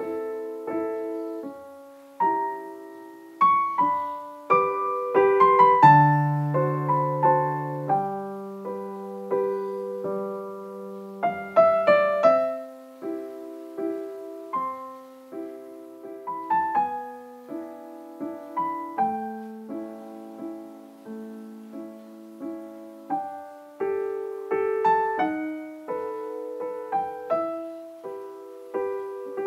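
Gentle piano music: single notes and chords struck and left to ring, with deeper bass notes about six seconds in.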